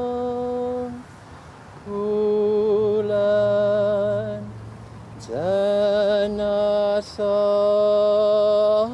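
A man's chanted invocation to ancestral spirits: slow phrases of long held, wavering notes, over a steady lower drone. There is a short break after about a second, and the next phrase begins with a rising scoop about five seconds in.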